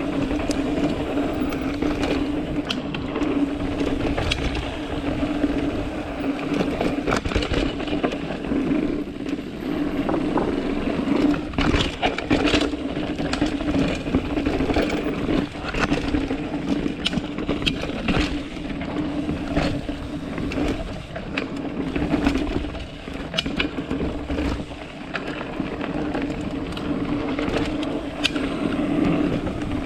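Mountain bike riding fast down a rough downhill trail: rolling tyre noise over dirt with frequent knocks and rattles as the bike hits roots and rocks, over a steady hum.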